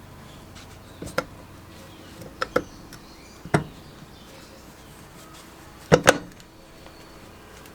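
Six short sharp knocks and clicks, as of tools or parts being set down and handled on a workbench. There is one about a second in, a quick pair near two and a half seconds, one at three and a half, and the loudest, a close pair, about six seconds in, over a faint steady background hum.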